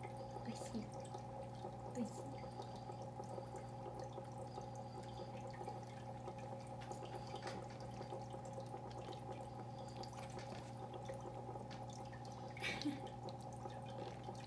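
A steady low hum with faint, scattered wet clicks and smacks from eating sticky natto.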